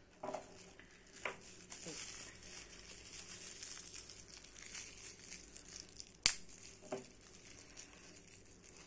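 Faint crinkling of a small clear plastic packet as it is handled and pulled open, with a single sharp click about six seconds in.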